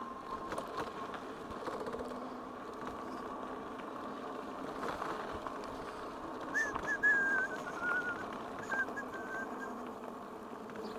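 A bird whistling a run of short notes, each a little lower than the last, over a few seconds past the middle, above a steady low hum.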